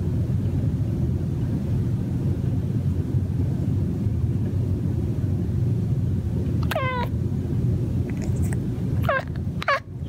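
A domestic cat making three short, downward-sliding mewing chirps, one about seven seconds in and two close together near the end: the mumbling chatter of a cat watching birds. Under the calls runs a steady low rumble.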